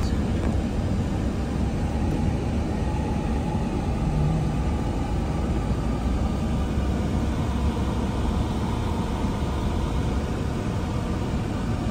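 Steady low rumble of a car on the move, heard inside the cabin: engine and tyre noise.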